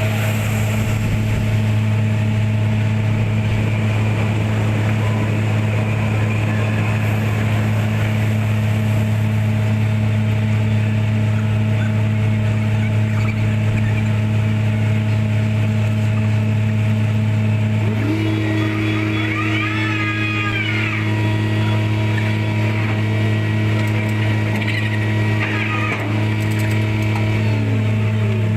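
An engine running steadily under a constant low hum. About two-thirds of the way in, a whining tone joins, rising and then falling again.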